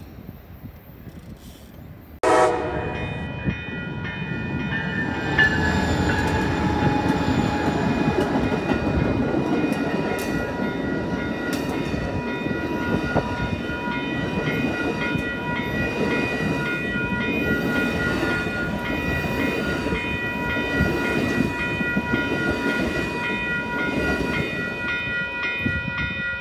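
Amtrak passenger train of Superliner cars passing at speed over a grade crossing: the locomotive horn comes in suddenly about two seconds in, then the wheels clatter over the rails. Crossing bells ring steadily over the train noise.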